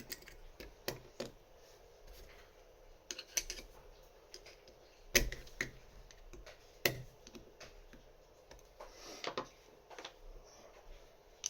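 Small metal parts of a Lagard 2200 lock being handled and fitted back together: irregular light clicks and knocks, the sharpest about five and seven seconds in.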